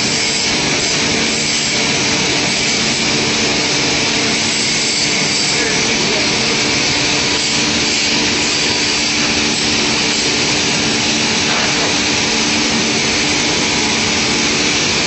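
Woodworking machine running steadily: an even, unbroken motor whir with a low hum.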